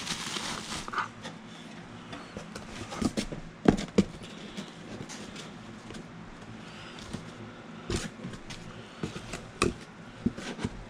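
Plastic packaging rustling as it is handled, then scattered clicks and knocks of parts being moved about, the sharpest about four seconds in.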